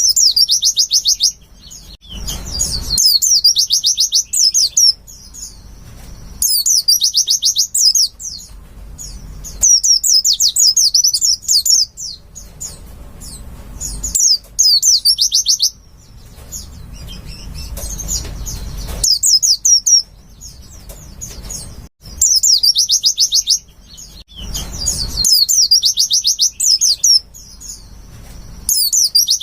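White-eye (pleci) song: bursts of rapid, high chattering notes, each burst lasting one to three seconds and coming again every few seconds.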